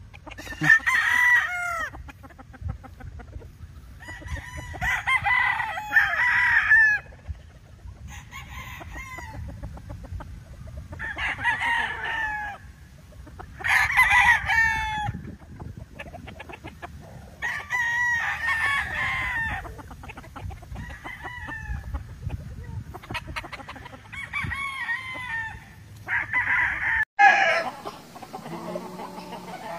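Gamecocks crowing one after another, a long crow every few seconds, with several birds at times crowing over each other.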